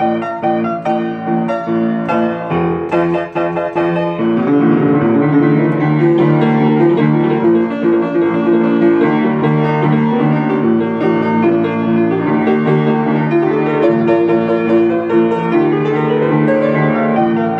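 Upright piano played with both hands: separate struck chords at first, then about four seconds in the playing becomes fuller and louder, a dense stream of fast notes.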